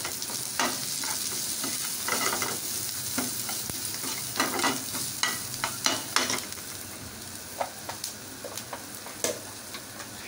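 Chopped onion, green chillies and crushed coriander and cumin sizzling in oil in a metal frying pan, with a steady hiss. A metal ladle scrapes and clinks against the pan at irregular intervals as the mixture is stirred.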